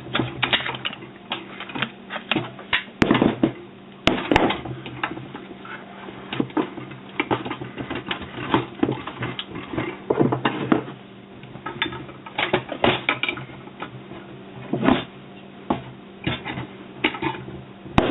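Irregular clicks, clanks and rattles of metal and plastic parts of a rice cooker being handled and pried apart by hand, with a few louder knocks.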